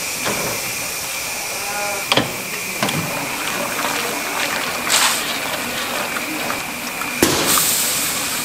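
Steady hum and thin whine of a motorized stirring kettle running, with a couple of metal clinks from a ladle against the steel pot. About seven seconds in, puffed rice is dumped into the kettle with a sharp hit, followed by a rushing hiss of the grains pouring and churning.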